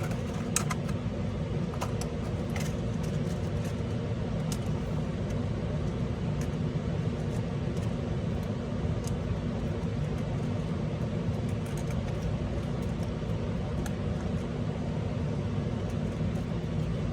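Steady low background hum, with scattered light clicks from small parts and a screw being handled on a workbench.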